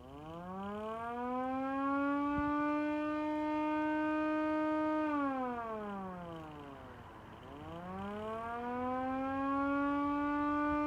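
Vixen Horn motor-driven electric siren sounding the Attack signal: its pitch winds up, holds for about two and a half seconds, winds down, then winds up and holds again. Its motor is running on badly worn brushes and is failing.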